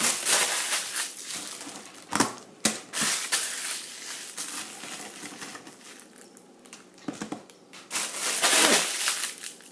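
Crinkly wrapping material being crumpled and handled close to the microphone, in irregular rustling bursts with a few sharp crackles, loudest near the end.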